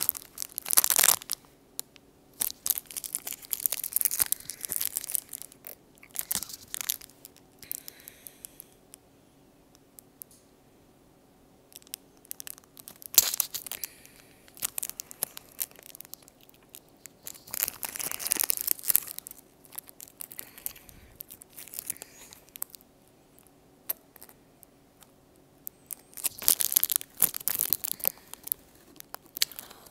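Clear cellophane candy wrapper crinkling and tearing as it is worked open by hand, in short crackly bursts with pauses, and a quiet stretch about ten seconds in.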